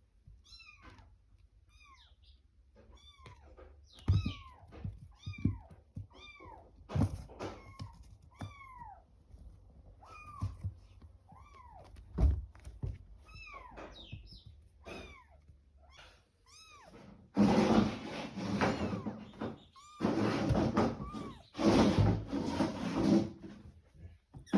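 Kittens mewing over and over in short, high, thin calls, with a few thumps among them. In the last several seconds a stretch of loud rustling noise covers the calls.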